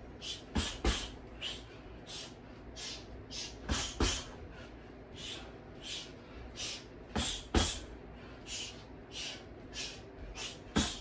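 A boxer's sharp, hissing exhales through the teeth, one with nearly every movement, at a brisk rhythm, broken by a few heavy thuds that come in pairs.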